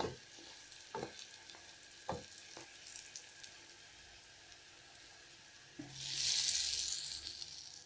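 Pirozhki frying in vegetable oil in a pan, a steady sizzle with a few sharp knocks of a wooden spatula against the pan as they are turned over. About six seconds in, the sizzle swells loudly for a second or so as another pie is flipped into the hot oil.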